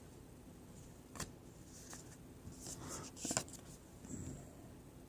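Faint, sparse clicks and light scrapes of baseball trading cards being handled and slid one behind another.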